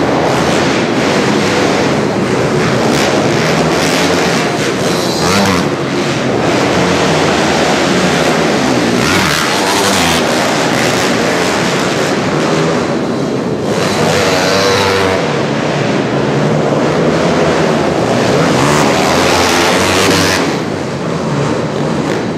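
Several pit bikes racing, their small motorcycle engines overlapping and revving up and down over and over.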